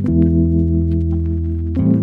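Background music: slow, sustained ambient chords, changing to a new chord near the end.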